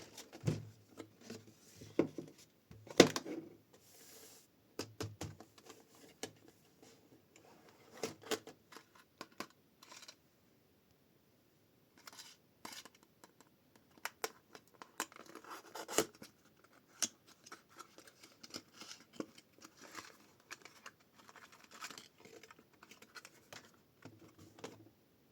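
Hands unboxing a blind-box toy: packaging being torn, rustled and handled, with scattered sharp clicks and scrapes. There is a short pause about ten seconds in.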